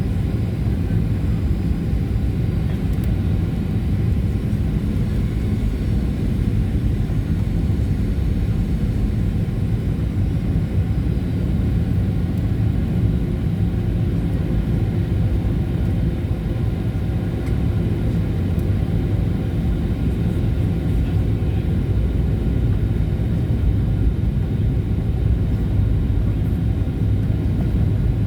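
Steady low rumble of a Boeing 737-800 in flight, heard from inside the passenger cabin: engine and airflow noise with no change in loudness.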